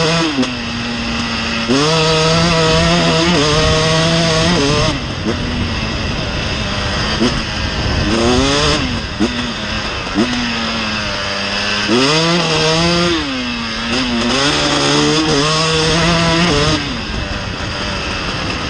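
2019 KTM 300 EXC TPI's fuel-injected two-stroke single, revved up and down several times. Between revs it holds a raised pitch for a second or three, then drops back to a steady lower note. The throttle blips clear the flooding at idle that the owner calls the bike's only fault.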